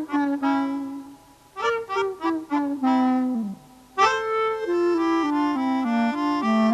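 Instrumental music with a reedy wind-instrument melody: two phrases of quick notes, the second ending in a downward slide, then from about four seconds a smoother line of held notes stepping downward.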